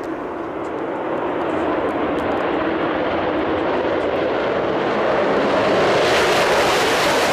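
Jet noise of Concorde's Olympus 593 turbojet engines as the airliner passes low overhead. The rush builds steadily louder, and a hiss in the higher range fills in about six seconds in as it comes over.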